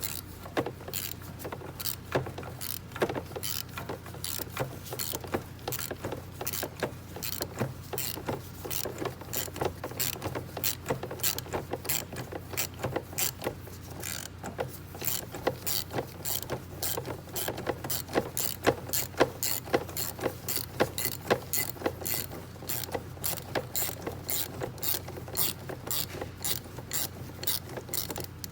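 Ratchet wrench with a spark plug socket on extensions clicking steadily, about two to three clicks a second with short pauses, as a spark plug is loosened counterclockwise from the engine.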